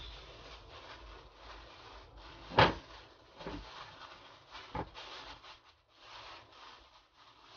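Thin polythene sheet being torn and crumpled by hand, a crinkly rustle broken by a few sharp clicks, the loudest about two and a half seconds in.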